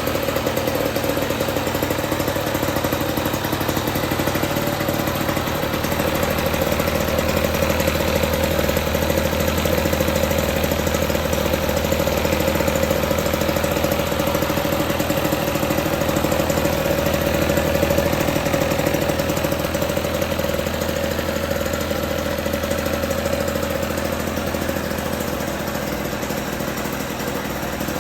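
1955 Lawn-Boy 8F20 mower's two-stroke engine running steadily at a constant speed on its first run after restoration.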